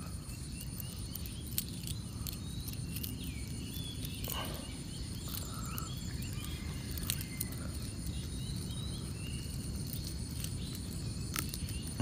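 Outdoor morning ambience: small birds chirping in short, repeated calls in the background, over a steady low rumble of wind or handling on the microphone, with a few brief clicks.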